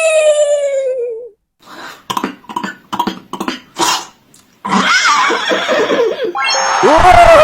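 Human mouth sound effects, beatbox-style. A held pitched tone slides down and stops about a second in. A run of short clicks and pops follows, then a noisy, hissing stretch with gliding tones near the end.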